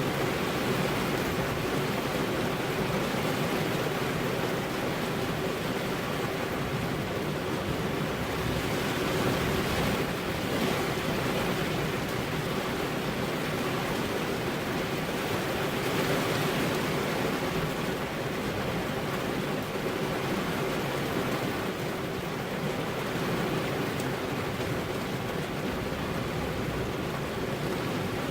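Steady rainfall: an even, unbroken hiss of rain with no single drops or thunderclaps standing out.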